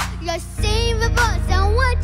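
A young girl singing into a handheld microphone over instrumental accompaniment with steady bass notes. Her voice slides between notes, with a brief break about half a second in.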